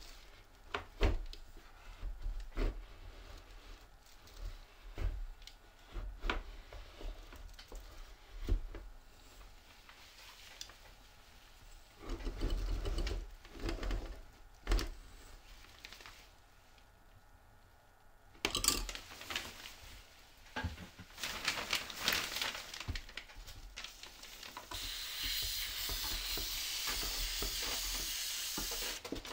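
Scattered clicks and knocks of parts being handled, then bursts of hissing from about two-thirds of the way in, turning into a steady hiss near the end.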